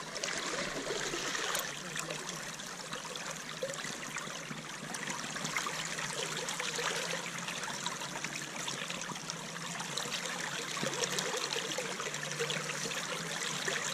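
Shallow river current flowing steadily, heard close to the water's surface.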